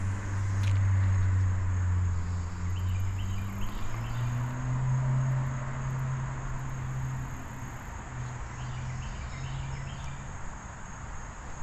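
Insects chirring steadily in a summer outdoor setting, over a low hum that steps up in pitch about four seconds in and fades toward the end.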